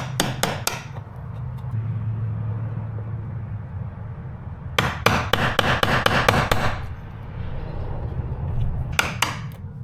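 A hammer tapping a wood chisel into a wooden door jamb to cut the recess for a deadbolt striker plate. The strikes come in three groups: a few near the start, a fast run of about ten in the middle, and three more near the end.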